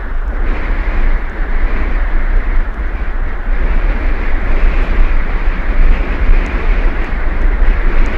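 Tornado wind blowing hard and unbroken, buffeting the microphone with a heavy, wavering rumble.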